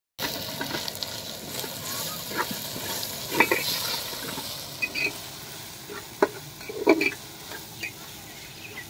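Onions, green chillies and ginger-garlic paste sizzling in oil and ghee in an aluminium pot, stirred with a slotted metal spoon that scrapes and knocks against the pot a few times.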